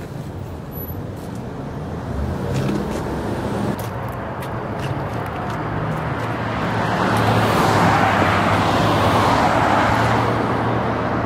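A motor vehicle's engine and tyre noise swelling as it passes close, loudest about seven to ten seconds in, with a steady low engine hum underneath.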